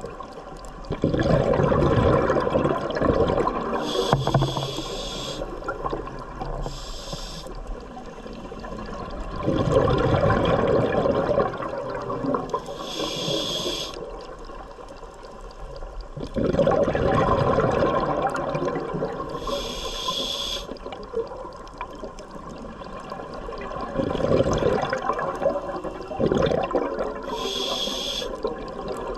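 Scuba diver breathing through a regulator underwater: about four slow breaths, each a rushing burst of exhaled bubbles followed a few seconds later by a short hiss as air is drawn through the regulator.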